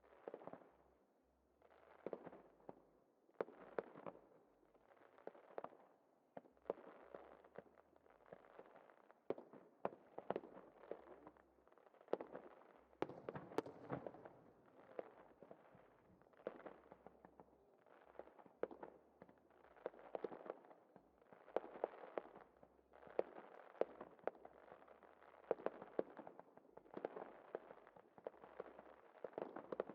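Aerial fireworks going off in a steady string of sharp bangs, about one every second or so, each trailing off after the bang.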